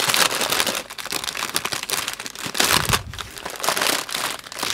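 Clear plastic packaging crinkling as hands fold and handle it: the wrap and the small plastic bags of rhinestone drills, in an irregular run of crackles.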